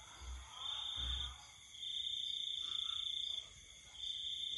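Insects droning outdoors: a steady high-pitched tone that stops and starts every second or two, with a couple of faint low bumps in the first second and a half.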